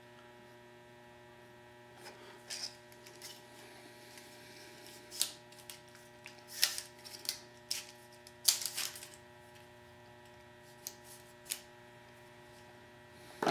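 Steady electrical hum with a scattering of light clicks and taps, as of things being handled, mostly between about two and twelve seconds in.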